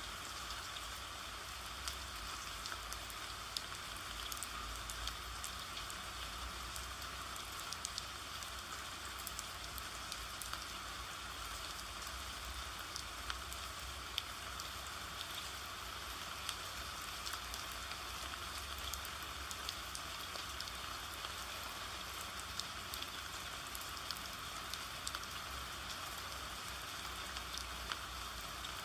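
Steady rain falling: a continuous hiss scattered with the ticks of individual drops hitting a surface.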